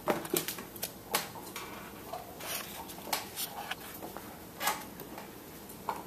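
Irregular knocks, taps and scuffs of handling as a cardboard shoebox flow meter is fitted up against a ceiling AC vent, about eight separate sharp knocks spread unevenly with the loudest near the start.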